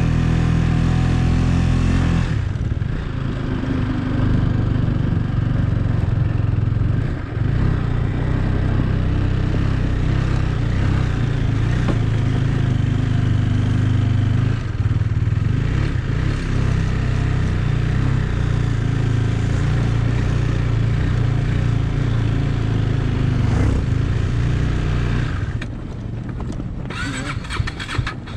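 Motorcycle engine running steadily at low road speed, with a few brief dips in its note. Near the end the engine eases off and the sound drops to a lower, less steady level.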